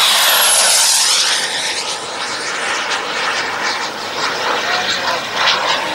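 A 14 kg-thrust JetCat turbine in a radio-controlled Top-RC Odyssey jet flying a fast, low pass: a loud rushing whine that drops in pitch as it goes by, then eases back to a fainter rush about a second in as the jet moves away.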